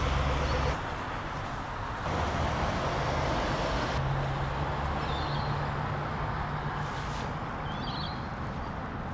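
Outdoor street ambience of road traffic, a steady noisy rumble that drops abruptly under a second in and rises again at about two seconds. A couple of short bird chirps come through later on.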